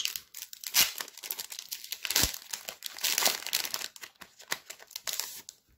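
Foil booster-pack wrapper crinkling as it is opened and handled: a dense run of sharp crackles that thins out near the end.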